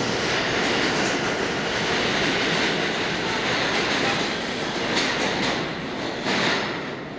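New York City subway train running past the platform: steady noise of wheels on the rails that starts to die away near the end.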